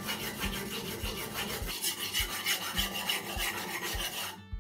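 Sashimi knife (yanagiba) blade scraped back and forth on a wet, coarse diamond sharpening stone in quick, even strokes. The strokes stop abruptly just before the end. The chipped edge is being ground away.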